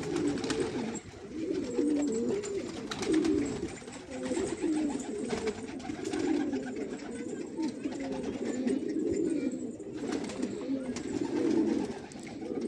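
A flock of domestic pigeons cooing together in a continuous, overlapping chorus, with a few short sharp flaps of wings as birds take off.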